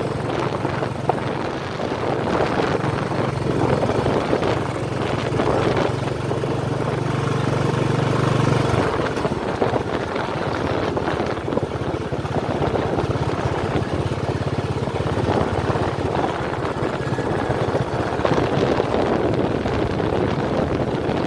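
A vehicle's engine running as it drives along a rough dirt track, with wind buffeting the microphone. A steady low hum in the engine note drops away about nine seconds in.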